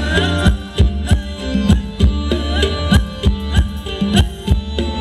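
Live band playing Thai ramwong dance music: a steady beat of deep drum hits that drop in pitch, over a sustained bass line, with a bending melody line above.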